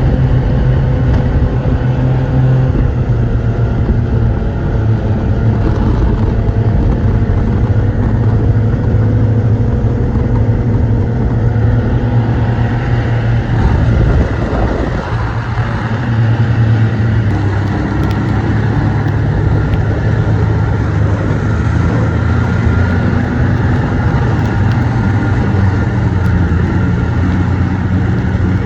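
Snowmobile engine running steadily at travelling speed, its note wavering slightly, with a brief dip in level about halfway through.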